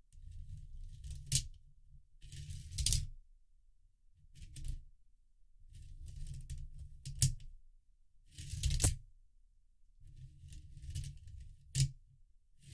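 3D-printed plastic coin sorter worked by hand: coins scrape and rattle against the plastic as the feed wheel is pushed round, about six times. Several pushes end in a sharp click as a coin drops down the ramp into its slot.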